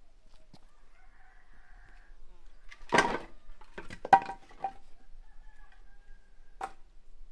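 A rooster crowing, mixed with wooden knocks and clatter from split firewood being carried and set down by the clay oven. The loudest sounds come in a cluster around the middle, with one more knock near the end.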